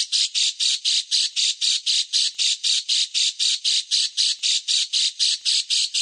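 A songbird's call given as a rapid, evenly paced string of short scratchy notes, about five or six a second. It is a bird-song tutor (masteran) recording meant for training cage birds.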